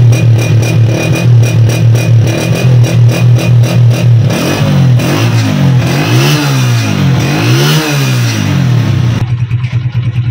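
Honda CG125's single-cylinder four-stroke engine running and exhaust note, revved up twice in the middle with the pitch rising and falling each time, then dropping back to a steady idle near the end.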